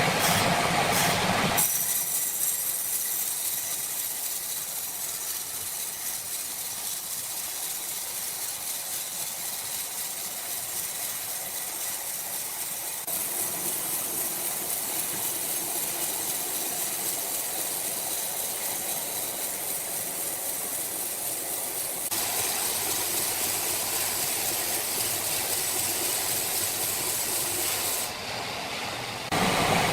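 Sawmill machinery running steadily with a hissing, mechanical noise. The sound changes abruptly several times, jumping in level and character.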